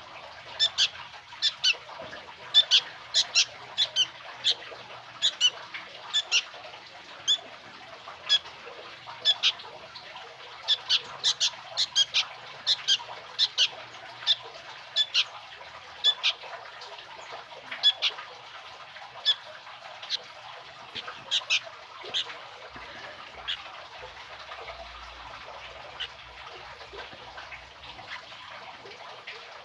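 Young sooty-headed bulbul (kutilang) calling: short, sharp, high calls repeated in quick clusters, growing sparse and fading in the last third.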